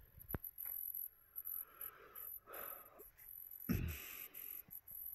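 Crickets chirring in a steady high-pitched trill with short breaks, over a soft rustle and a single low thump about three and a half seconds in.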